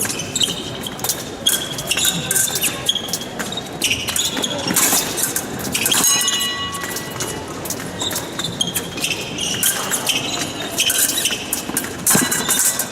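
Épée fencers' shoes squeaking and stamping on the piste as they move and lunge, with quick clicks of blade contact and footfalls echoing in a large hall. A steady tone sounds for about a second midway.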